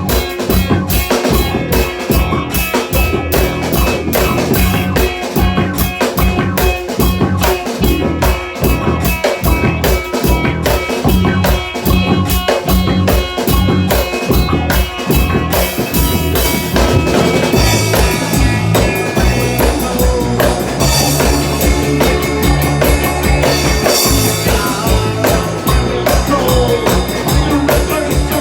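Rock band playing with a busy drum kit, bass drum and snare driving a fast, even beat; about halfway through the beat gives way to held notes.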